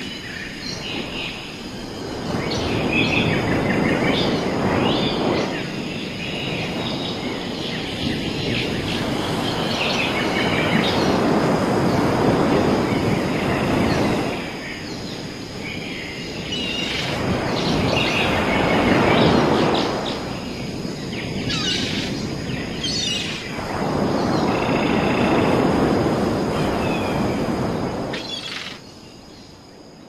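Nature ambience: birds chirping over a rushing noise that swells and fades every several seconds, fading out near the end.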